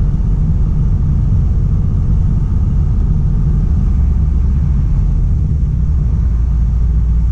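Loaded heavy truck heard from inside the cab on a long downhill, its engine running in a steady low drone over tyre noise on wet asphalt, with the retarder holding the truck back instead of the service brakes. The low drone deepens and strengthens about four seconds in.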